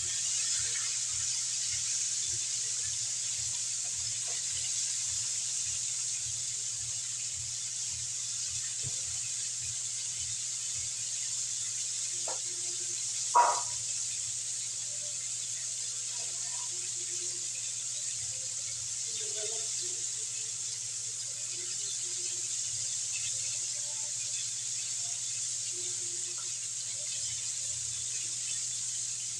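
Chicken pieces deep-frying in hot oil in a wok, a steady sizzle throughout. There is one sharp knock about halfway through.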